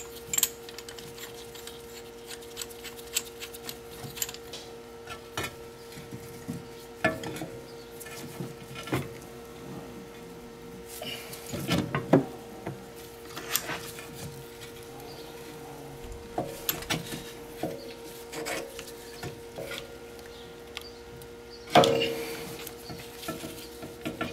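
Scattered metallic clinks, scrapes and rubbing as a hand piston-compressor tool is worked against a 2008 VW Passat's rear brake caliper, pushing the caliper piston back in. The loudest clanks come about halfway through and near the end, over a steady faint hum.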